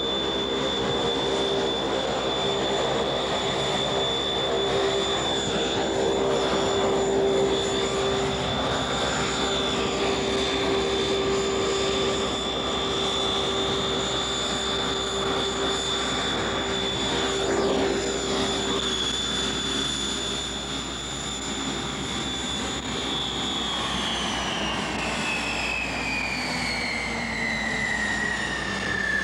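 Rolls-Royce Dart turboprop engines of a Fokker F27 Friendship running with a steady high-pitched whine over a lower hum. About 24 seconds in the whine starts falling steadily in pitch as the engines spool down at shutdown.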